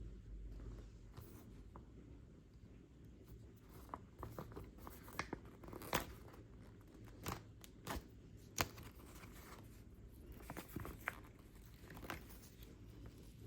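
Scattered small handling noises: irregular clicks, taps and rustles over a low hum, starting a few seconds in, with the sharpest clicks around the middle.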